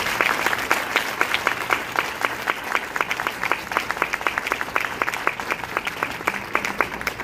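Audience applauding: a roomful of people clapping, with some single claps much louder and close at hand, starting to die down at the end.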